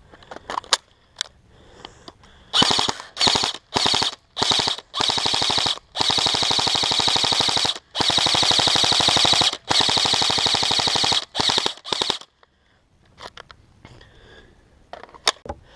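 G&G CM16 Raider L airsoft electric rifle firing: a few single shots, then short bursts and several long full-auto bursts of one to two seconds each, a rapid even clatter of the motor-driven gearbox cycling. The firing stops about twelve seconds in.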